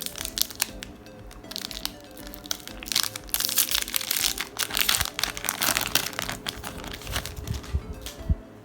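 Foil wrapper of a Pokémon card booster pack crinkling and tearing as it is opened, loudest in the middle, over steady background music.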